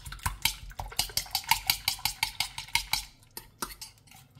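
Metal fork beating eggs with coconut milk in a stainless steel frying pan, its tines clicking rapidly against the pan. The clicking thins out and grows quieter about three seconds in.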